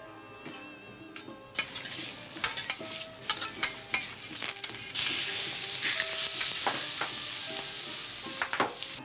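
Food sizzling on a hot teppanyaki griddle, with metal utensils clicking and scraping on the plate; the sizzle sets in about one and a half seconds in.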